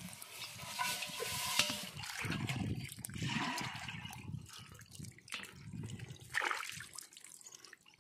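Irregular wet splashing and sloshing as a hand scoops small live pangasius fingerlings in a wet plastic basket.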